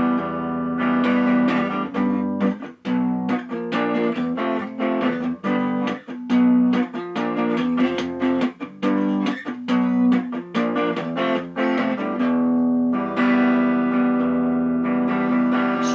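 Guitar playing an instrumental passage of a song without singing: short, choppy chords with brief breaks, turning to longer, ringing chords near the end.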